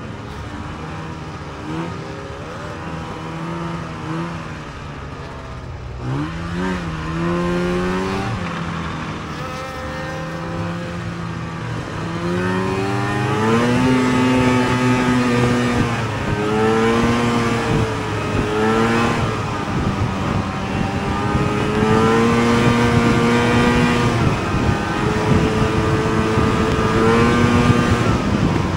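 Two-stroke snowmobile engine running under way, its pitch rising and falling over and over with the throttle, over a steady rushing noise. It gets louder and higher about halfway through.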